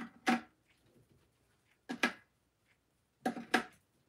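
Baked cookies being piled into a cake pan: three pairs of short clacks against the pan, about a second and a half apart.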